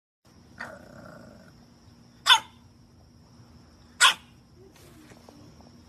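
English bulldog puppy giving two short, high barks, a little under two seconds apart.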